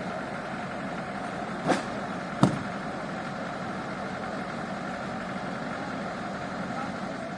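A steady engine idling, with two short sharp knocks about a second apart, the second louder.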